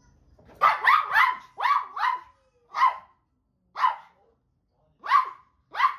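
A small toy poodle barking: about nine sharp, high-pitched barks, a quick run of them in the first two seconds, then single barks about a second apart.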